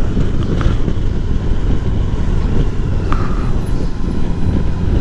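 2018 Honda Gold Wing's flat-six engine and road noise heard while riding: a steady low rumble.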